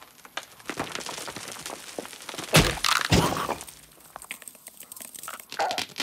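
Cartoon sound effects of stone cracking: a run of sharp cracks and crackles, then a heavy crunching impact about two and a half seconds in as the boulder comes down.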